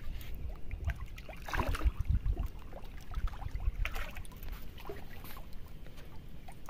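A hooked rohu (carp) splashing at the water's surface as it is played in among rocks, with scattered short splashes throughout.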